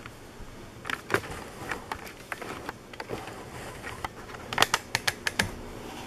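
Scattered small clicks and taps of hands handling a cardboard product box and its packaging on a table. A quick run of sharper clicks comes near the end.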